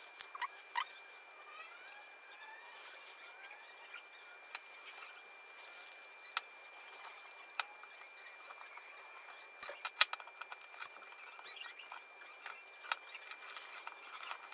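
Scattered light clicks and taps of small metal parts as 5 mm bolts, nuts and wheels are fitted to a plywood plate and tightened with pliers and a hex key, with one sharper click about ten seconds in.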